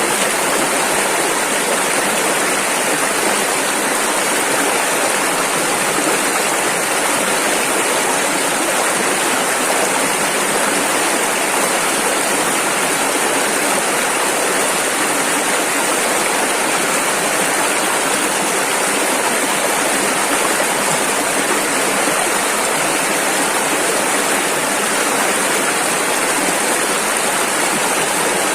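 Rushing river water, a steady, unbroken hiss of fast-flowing rapids.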